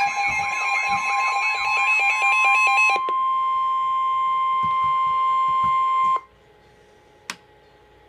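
NOAA Weather Radio's 1050 Hz warning alarm tone, a single steady beep, sounding through a weather alert radio's speaker; it signals that a warning broadcast, here a severe thunderstorm warning, is about to follow. For the first three seconds a second, warbling and rapidly pulsing alarm sounds over it. The tone cuts off about six seconds in, leaving a low hiss and a single click about a second later.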